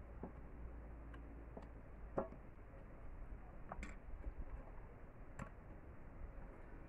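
A few sparse, light clicks and knocks, the loudest about two seconds in, from a bamboo stick and hand tools being handled and set against each other on the ground, over a faint steady background.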